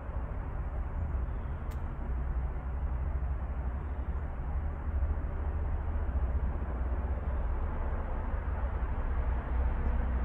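Steady outdoor background noise: a low, fluctuating rumble with a hiss over it, and a faint click about two seconds in.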